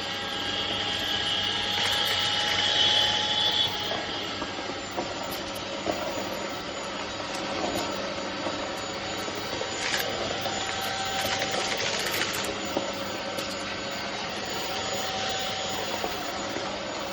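Iirios 580 W cordless stick vacuum running steadily over carpet: motor whine and airflow hiss. The hiss is brighter for the first few seconds, and a few short clicks come about ten and twelve seconds in.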